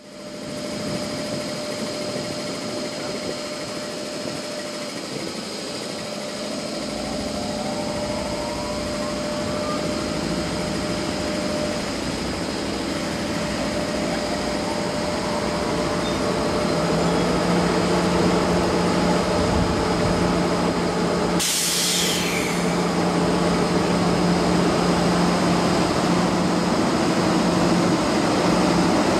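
EF66 electric locomotive pulling away from a standstill with a train of new unpowered EMU cars, its running noise building and growing louder, with a rising whine as it gathers speed. A short hiss of air comes about 21 seconds in.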